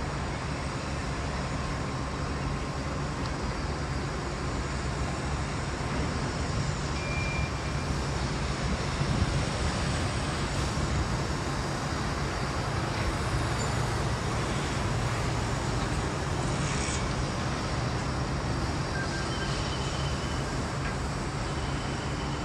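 Steady city traffic noise with a low engine hum, broken by a few short high electronic beeps: one about seven seconds in and several near the end.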